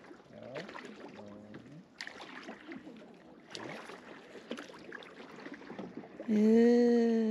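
Kayak paddle strokes and water splashing and dripping as a plastic sit-on-top kayak is paddled through a shallow, reedy swamp channel, with a few sharp knocks of paddle or hull. Near the end a person's voice holds one long, slightly falling note for about a second and a half, louder than everything else.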